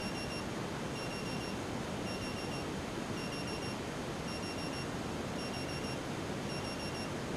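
Piezo buzzer on an Arduino Multi Function Shield sounding an alarm: quick bursts of four short high beeps, repeating about once a second, the signal that the countdown or alarm time has been reached. A steady hiss runs underneath.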